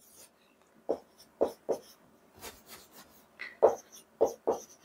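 Marker pen writing on a whiteboard: a run of short strokes, a few early and then a denser cluster in the second half.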